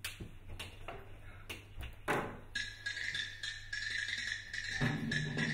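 Music coming in: a few sparse percussive knocks, then a held high tone from about halfway, with low sustained notes joining near the end as it grows louder.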